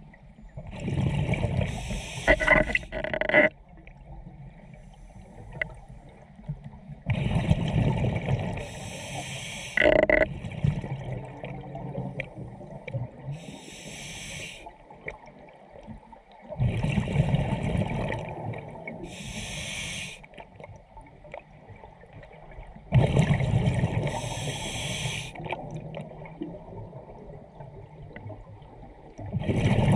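A scuba diver breathing through a regulator underwater: slow breaths about every five to six seconds, each a loud rush of exhaled bubbles together with a higher hiss from the regulator, with quieter gaps between.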